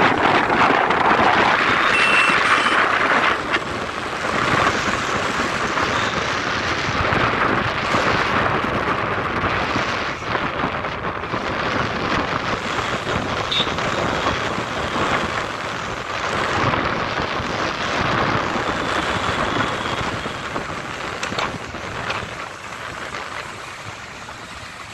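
Wind rushing over a helmet-mounted microphone on a moving motorcycle, mixed with road noise, the rush wavering and easing off near the end.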